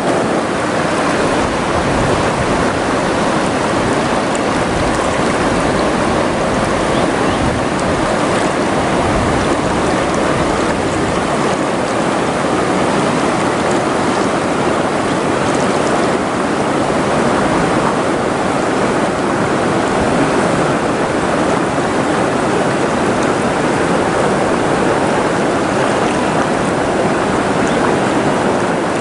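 River current rushing over a shallow, choppy stretch: a steady, even noise of running water.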